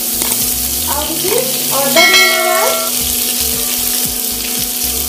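Fresh curry leaves and grated ginger sizzling in hot oil with mustard seeds in a nonstick wok, a steady spluttering hiss. A short pitched voice-like sound rises over it about two seconds in.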